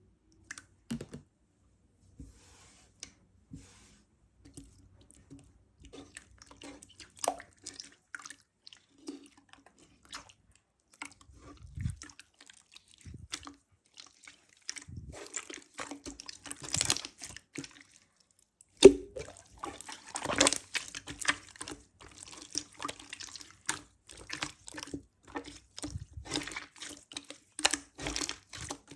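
A soft, sticky, rice-cake-like mass being pressed and poked by hand on loose glitter, giving irregular wet clicks and squishes. They are sparse at first and grow denser and louder about halfway through, with one sharp click about two-thirds of the way in.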